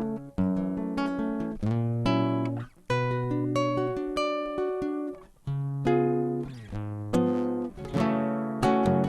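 Acoustic guitar playing an instrumental interlude of a sung folk song: struck chords and single bass notes, each left to ring and fade before the next.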